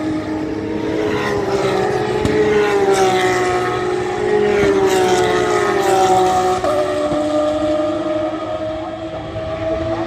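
GT race car engines running hard on a circuit. The engine note climbs and then drops in steps at gear changes several times, and a car passes close by about six seconds in.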